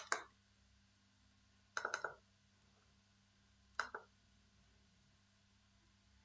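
Computer mouse clicking: one click at the start, then a quick double click about two seconds in and another about four seconds in, over a faint steady low hum.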